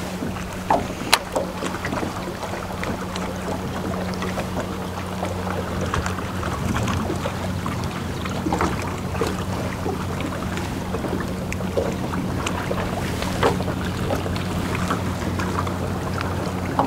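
A small fishing boat's motor hums steadily at a low pitch, with wind and water noise and a few light knocks.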